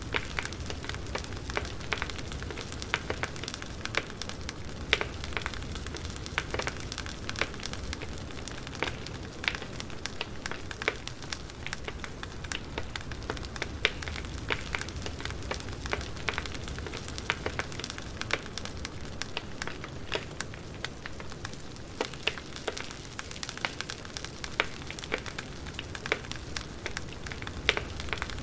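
Campfire burning: a steady hiss under frequent, irregular sharp crackles and pops of burning wood.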